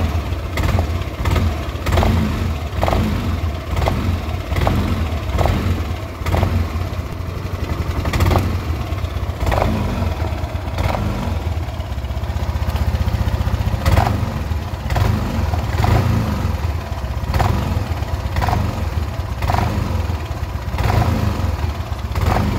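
Yamaha NMAX scooter's engine running with the rear wheel spinning on the stand, the throttle opened and eased off. Over the engine there is a repeated 'cetok cetok' clicking knock from the CVT, roughly once a second, which comes when the throttle is opened.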